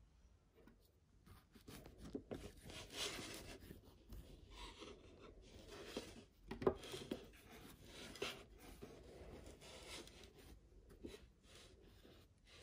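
Crust of a freshly baked fruit loaf rasping and crackling under hands as the loaf is handled and broken open, with one sharper crack about halfway through.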